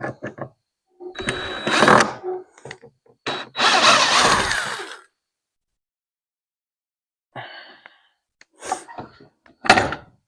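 Handling noises from work on the radio wiring: two bursts of rustling and scraping in the first half, then a few separate knocks and thunks near the end.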